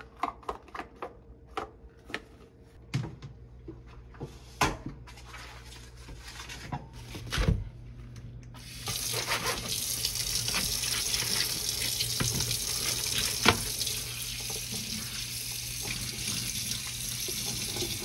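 Scattered clicks and knocks of handling with rubber gloves, then, about halfway in, a kitchen tap turned on full: water running steadily into a stainless-steel sink as a raw mackerel is rinsed under it.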